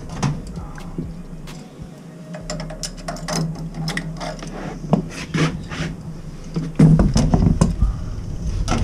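Pliers clicking, scraping and slipping on the stuck relief valve of a Weil-McLain CGi boiler as it is worked to turn it out: irregular metal clicks and knocks, with a louder stretch of knocking near the end.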